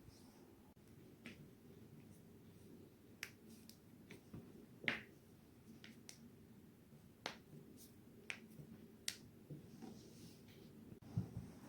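A person's joints cracking as they are twisted: about ten sharp, short pops at uneven intervals, the loudest about five seconds in.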